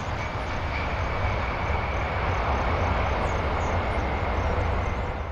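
Jet engines of a four-engined Boeing 747 during its landing roll-out, running as a steady noise with a deep rumble underneath and a thin, steady high whine over it.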